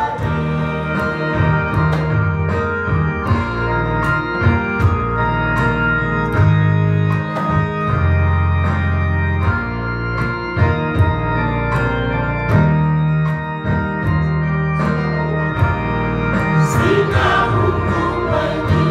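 Gospel choir singing over an electronic keyboard playing sustained organ-like chords and bass, with a steady programmed drum beat.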